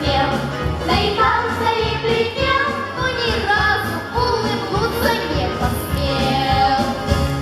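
Children's vocal ensemble singing a lively song in unison over instrumental accompaniment with a steady bass beat.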